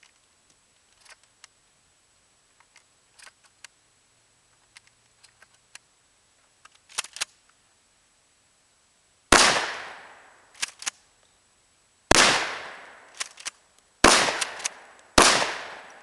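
Four 12-gauge shotgun blasts, the first about nine seconds in and the other three in quicker succession near the end, each ringing out for about a second, with sharp clacks between the shots. Light clicks of handling before the first shot.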